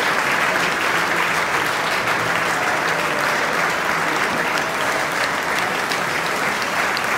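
A crowd of spectators applauding, a steady, dense clapping.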